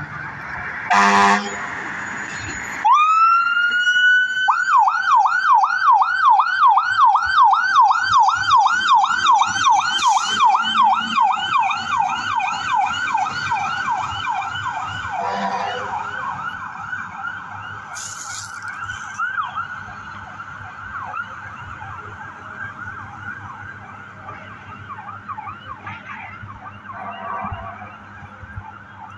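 Fire engine horn gives a short blast about a second in. Then the siren winds up and runs a fast yelp, sweeping rapidly up and down, and fades as the truck pulls away. A second short horn blast comes about halfway through.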